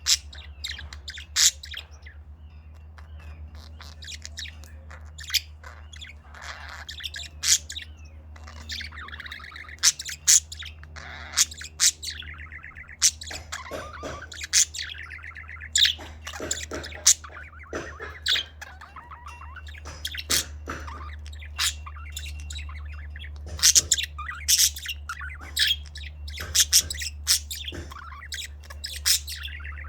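Pet budgerigars chirping and warbling: many sharp chirps scattered throughout, with stretches of chattering warble, over a steady low hum.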